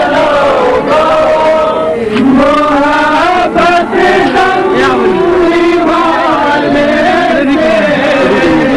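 Men chanting in a sung, drawn-out melody, with long held notes that slide up and down.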